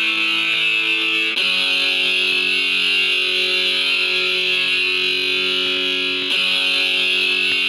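Background music led by an electric guitar with effects, holding sustained chords that change twice.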